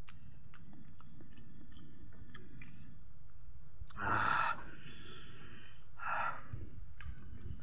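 A person chewing food with small wet mouth clicks, then a loud, breathy blast through the nose into a cloth about four seconds in, trailing off as a hiss, and a second shorter one about two seconds later.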